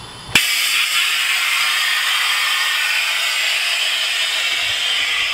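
Compressed air hissing through the air-ride suspension valves of a Kenworth T600 semi truck as the air bags raise or lower the truck. The loud, steady hiss cuts in suddenly with a click about half a second in.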